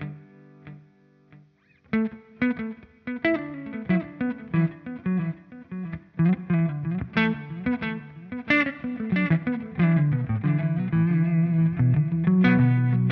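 PRS Studio electric guitar played through a GFI System Orca delay pedal into a Fender Super Sonic 22 amp. A chord fades out, then from about two seconds in comes a quick run of picked single notes. It ends on a held chord near the end.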